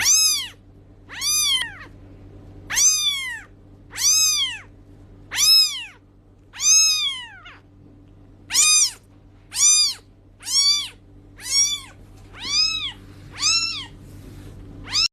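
A cat meowing over and over, about thirteen high-pitched meows roughly a second apart, each rising and then falling in pitch.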